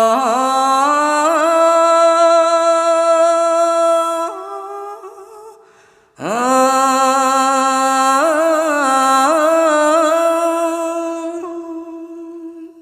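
A monk's solo voice chanting Khmer smot, unaccompanied. It holds two long, drawn-out notes with wavering ornaments, with a short breath between them about six seconds in. The second note fades near the end.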